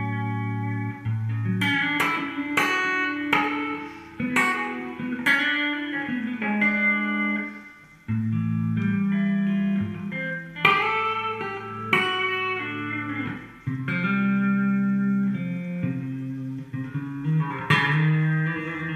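Electric guitar played as a picked melody: single notes with sharp attacks that ring on. Low notes held for a second or two at a time sit underneath.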